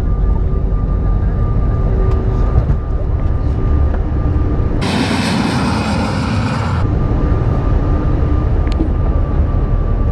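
Airliner cabin noise during takeoff: a loud, steady rumble of the engines and the wheels on the runway, with a thin steady whine above it. About five seconds in, a two-second cut to a loud hiss of a jet airliner taking off, heard from outside the airfield. Then the cabin rumble returns as the plane climbs.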